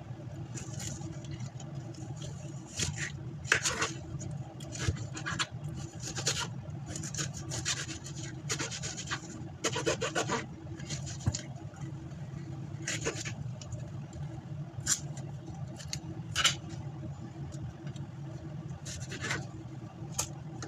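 Kitchen food-preparation noises: irregular short scraping and rubbing sounds of utensils and food being worked, over a steady low hum.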